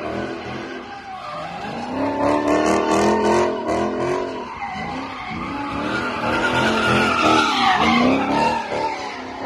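Dodge Charger doing donuts: the engine revs up and down while the rear tyres spin and skid on the asphalt. It swells loudest twice, a couple of seconds in and again near the end.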